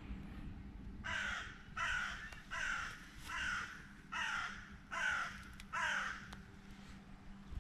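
A crow cawing seven times in a row, harsh calls about 0.8 s apart.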